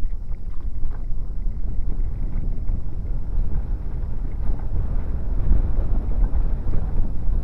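Wind buffeting the microphone of a moving camera: an uneven low rumble with no clear tones.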